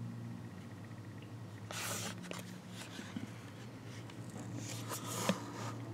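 Cardboard presentation folder handled and turned in the hands, its card rubbing and rustling twice, with a small click near the end, over a steady low hum.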